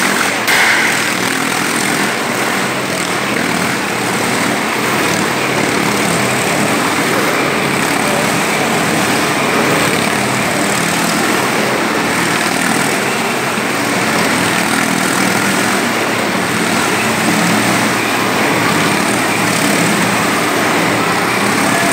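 Motorcycle engine running loudly and steadily as it rides round the wooden wall of a wall-of-death drum, its note wavering a little.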